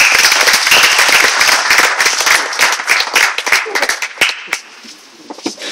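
A small audience applauding, with one pair of hands clapping close by, loud and sharp above the rest; the applause thins out and stops about four and a half seconds in.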